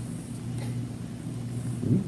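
A steady low hum, with a faint click about half a second in and a short low rising sound near the end.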